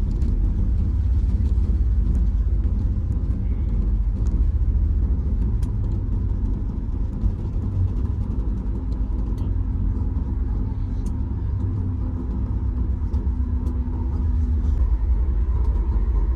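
Steady low rumble of a Boeing 737 MAX 8, heard inside the cabin as the jet rolls on the ground after landing. A faint steady hum sits over it through the middle.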